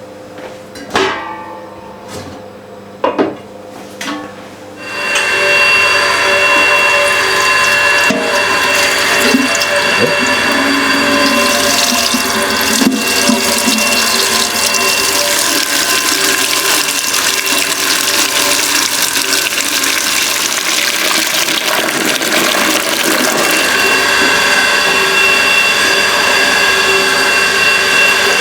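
A few light knocks, then about five seconds in a steady rush of running liquid starts and keeps going, with some steady ringing tones in it.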